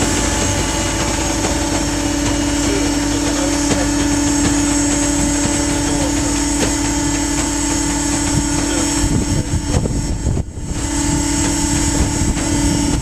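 Mill-size waste baler's hydraulic power pack running with a steady, loud hum, dipping briefly about ten seconds in before carrying on.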